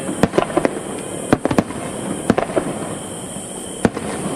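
Aerial firework shells bursting in an irregular series of sharp bangs, several in quick succession in the first second and a few more spread through the rest.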